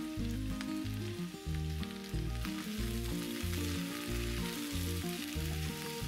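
Diced zucchini and bell pepper sizzling in oil in a frying pan while they are stirred with a spatula; the sizzle grows louder a couple of seconds in. Background music with a steady bass beat plays throughout.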